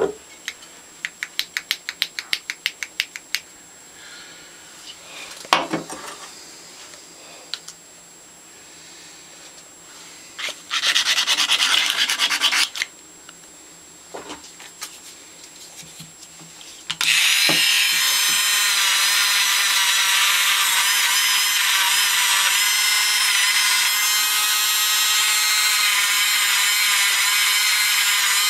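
Light metal clicks in a quick run, a single knock and a short burst of scraping as the metal parts of a Stanley No. 113 compass plane are handled. A little past halfway, a small power tool starts and runs steadily with a high whine.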